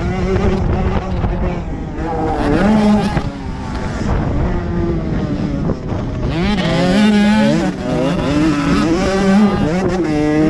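Motocross dirt bike engine heard close up from on board, revving up and down with the throttle so that its pitch rises and falls again and again. A rush of noise grows louder about six seconds in.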